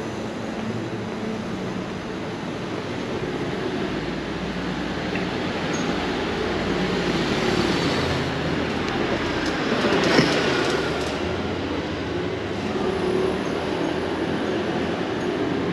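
Street traffic: a motor vehicle approaches and passes close by, growing louder to a peak about ten seconds in with a drop in pitch as it goes past, then fading. Steady street noise runs underneath.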